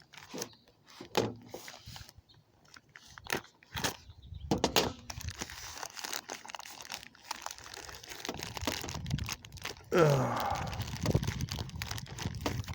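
Tightly packed parcel being cut and torn open with a blunt knife: scattered crunches, rips and crinkles of the packaging, louder about ten seconds in.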